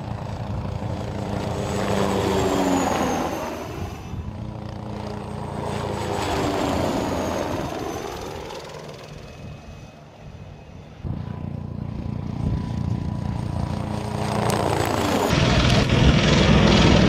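Eurocopter Tiger attack helicopters flying past, rotor and turbine sound. Twice in the first half it swells and drops in pitch as a helicopter passes, then a closer, louder, steadier rotor sound comes in near the end.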